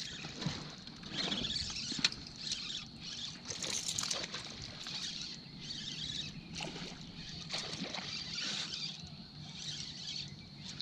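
Topwater fishing lure splashing on the pond surface as it is twitched back in, in short irregular bursts about a second apart, with a sharp click about two seconds in.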